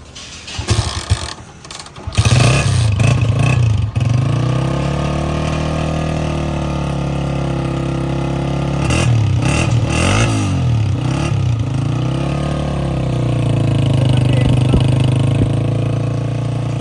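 New Honda CG125's air-cooled single-cylinder four-stroke engine starting on its first start about two seconds in, given a few quick revs, then idling steadily with another burst of revving partway through.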